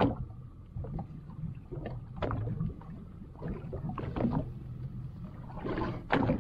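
Fishing boat's engine running with a steady low hum, with a few short, sharp sounds over it about every two seconds.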